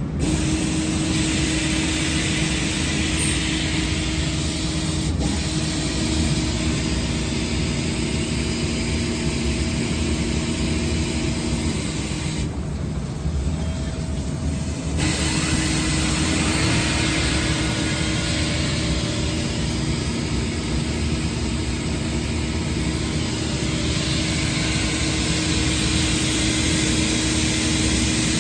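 Swiss-type CNC lathe running with its high-pressure coolant spraying, a steady hiss over a constant machine hum. The hiss cuts out for a couple of seconds about halfway through, then resumes.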